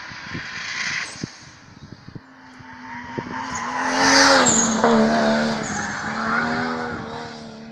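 Hillclimb race car's engine at high revs, growing louder as the car comes through the bend and passes close about four seconds in, then fading as it drives on. A brief tyre squeal comes at the loudest point, and a few sharp clicks sound in the first two seconds.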